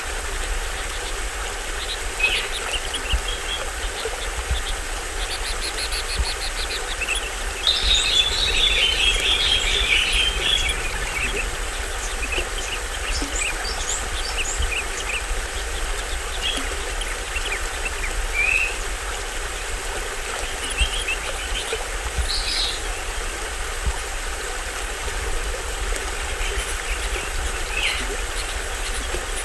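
Small waterfall splashing steadily, with tropical forest birds chirping and calling throughout; a dense flurry of bird calls about eight seconds in.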